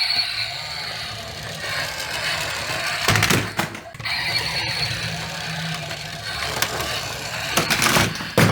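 Two toy cars rolling along a plastic toy track: a steady whirring rumble, with a few knocks about three seconds in and again near the end.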